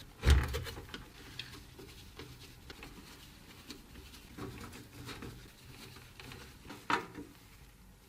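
Hands handling computer parts: a loud knock just after the start, scattered small clicks and taps, and another sharp knock about seven seconds in.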